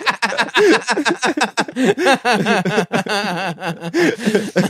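Men laughing loudly.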